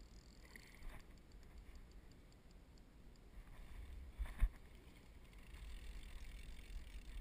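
Quiet ambience around a kayak on the sea: a low wind rumble on the microphone, a few faint ticks near the start, and a single knock a little after four seconds in.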